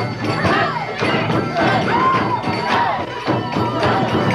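Drums beating a steady rhythm, about three or four strokes a second, with a crowd's voices singing and calling over them.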